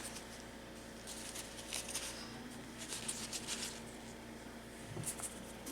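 Faint scratching and rustling of hands and tools working polymer clay, in a few short spells, over a steady low hum.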